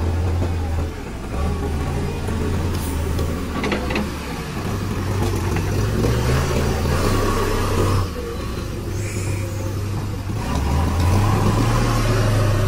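JCB 3DX backhoe loader's diesel engine running under working load, its sound falling and swelling as the loader lifts and the machine moves. A few short knocks come about three to four seconds in.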